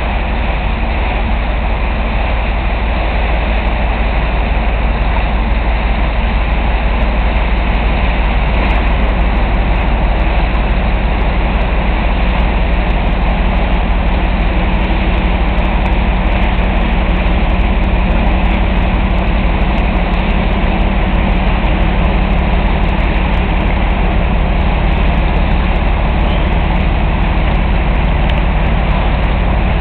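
Cargo ship's engine running with a steady drone, heard under a constant deep rumble; faint hum tones hold a steady pitch from about twelve seconds in.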